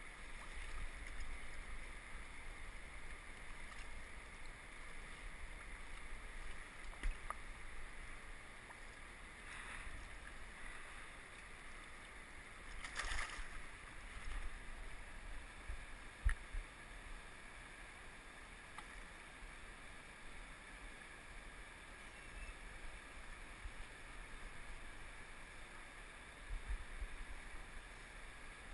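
River water flowing and lapping against a rocky bank, a steady rush, with low rumbling on the microphone. A few brief knocks and a short louder rush of noise about halfway through.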